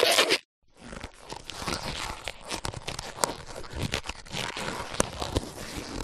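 Cartoon stretching sound effect: a long crunching, tearing crackle made of many small clicks, like something rubbery being pulled out. It starts just under a second in, after a louder sound cuts off half a second in.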